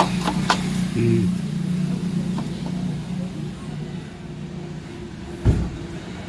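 A vehicle engine running steadily with a low hum, with a couple of sharp clicks near the start and a thump about five and a half seconds in.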